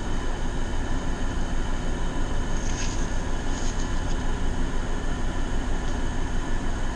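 Two room air conditioners running: a steady hum and rush of air with a slight regular throb.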